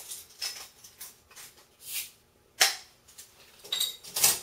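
Metal crown cap being pried off an 8-ounce glass Dr Pepper bottle: scattered small clicks and clinks, with one sharp pop about two and a half seconds in as the cap comes off.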